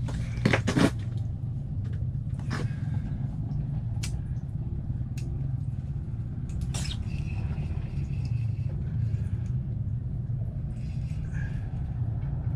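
Steady low rumble with a few sharp clicks and knocks; the loudest cluster comes just under a second in.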